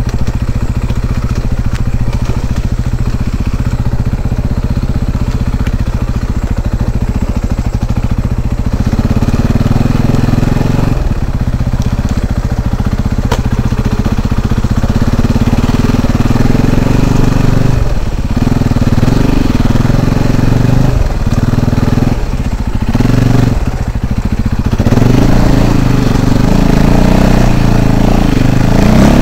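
Dirt bike engine running at low revs as the bike picks its way through dense brush. The throttle is closed briefly several times about two-thirds of the way through, then opened up and held louder near the end.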